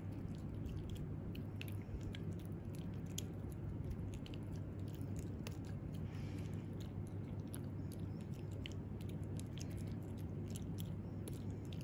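Italian greyhound puppy gnawing on a dental chew stick held in a hand: irregular small clicks and crunches of teeth working the chew, over a steady low hum.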